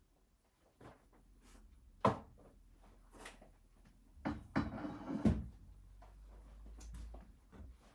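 Handling knocks and a scrape as a background scenery module is lifted and set back into place on a model railway layout: a couple of single knocks, then a quick cluster of knocks with a scraping rustle about halfway through.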